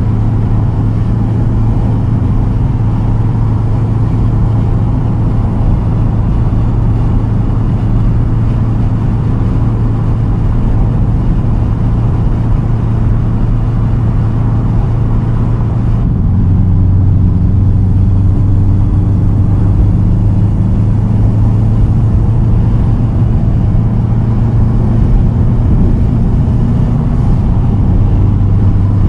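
2010 Subaru WRX STI's turbocharged 2.5-litre flat-four, fitted with a Tomei Expreme Ti single straight-pipe exhaust, giving a steady, loud low drone while cruising. About halfway through, the drone drops a little in pitch and grows slightly louder.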